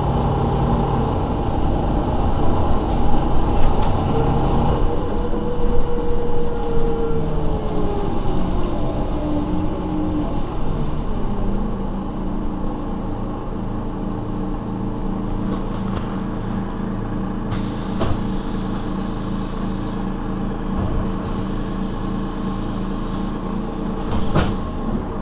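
Iveco Urbanway 12 city bus running, with a whine that falls steadily in pitch about five to ten seconds in. The engine then settles to a steadier, quieter note, with a few short clicks.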